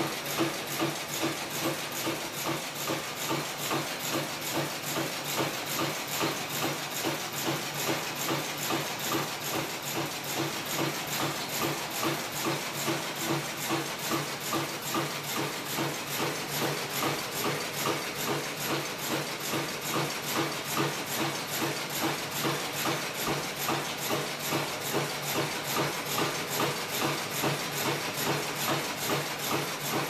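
1986 Teepack Constanta F4 double-chamber tea bag machine running at production speed: a steady, rhythmic mechanical clatter repeating about twice a second, with a hiss underneath.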